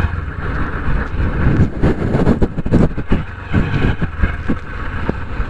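Wind rushing over the microphone on a motorcycle ride, over the low rumble of a Honda SP125 being ridden.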